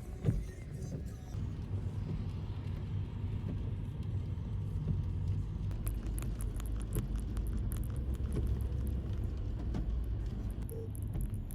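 Car driving, heard from inside the cabin: a steady low rumble of engine and road noise, with a run of light clicks in the second half.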